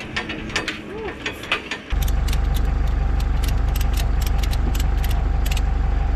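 A tow tractor's engine idling close by: a steady low drone with even pulsing that starts abruptly about two seconds in. Over it comes a run of sharp clicks as a ratchet strap is cranked tight. Before the engine comes in, there are light clicks of hand tools working on the engine.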